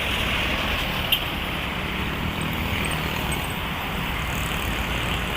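Steady roadside traffic noise with vehicle engines running, including a low engine hum in the middle, and one short sharp click about a second in.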